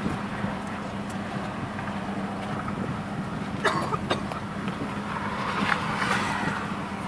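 A motor vehicle running nearby, a steady low hum under an even rushing noise, with two sharp clicks about halfway through.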